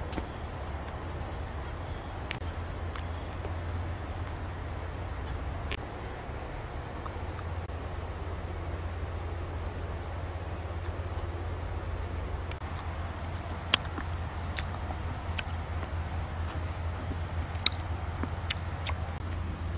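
Insects chirring steadily in a high, even drone over a low steady hum, with scattered sharp clicks, two of them louder in the second half.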